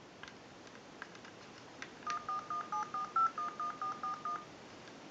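Handheld DTMF tone dialer held to a candlestick telephone's transmitter, sending a quick string of about a dozen short touch-tone beeps, roughly five a second, to dial a number. A few faint clicks come before the tones.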